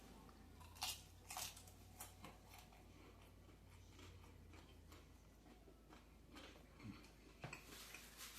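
Faint chewing and mouth sounds of a man eating fried chicken: a few soft clicks and smacks, the clearest about a second in and again near the end, over near silence.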